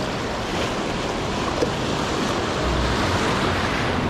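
Shallow surf washing over a rocky reef flat and around a concrete wall, with a steady rush of water that swells a little in the second half.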